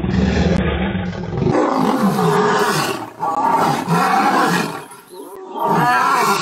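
Lions calling in three loud bouts of a second or more each, starting about a second and a half in. Before that there is a low rumble.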